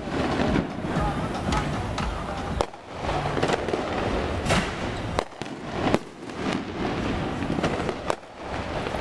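Fireworks going off: a string of sharp bangs and crackles at irregular intervals, some close together and some a second or more apart.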